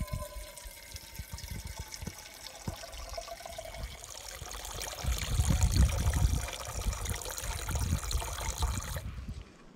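Water poured from a bottle into a Jetboil stove's cooking cup, a steady trickling fill, with a low rumble rising from about five seconds in. It stops abruptly near the end.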